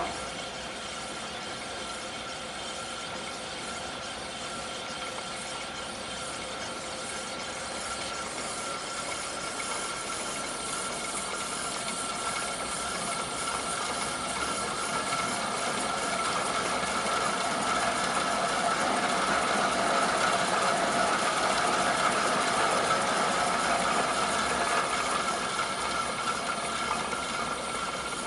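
DoAll 2012-1AC 20-inch variable-speed vertical band saw switched on abruptly and running steadily, with a mechanical hum and hiss and a few held tones. It grows gradually louder through the middle and eases off slightly near the end.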